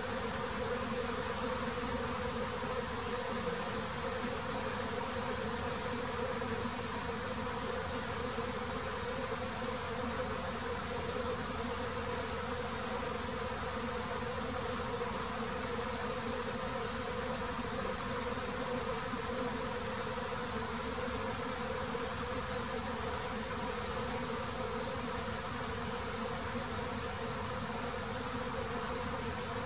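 A mass of honeybees buzzing at the hive in a steady, continuous drone that holds an even level throughout.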